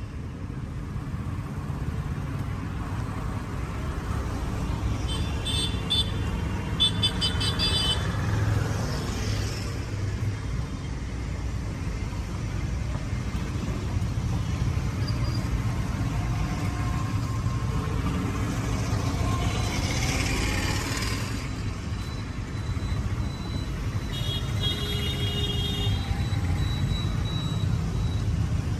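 Street traffic rumbling steadily, with a vehicle horn tooted several times in quick succession about five seconds in, a vehicle passing about two-thirds of the way through, and another horn near the end.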